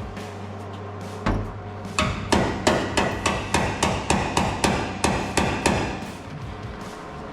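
Hammer striking metal during bodywork: one blow, then a steady run of about a dozen blows at roughly three a second. Background music plays underneath.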